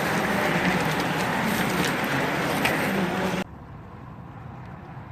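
A pack of racing bicycles passing close, a loud rushing whir of wheels. About three and a half seconds in it cuts off abruptly to a much quieter steady background.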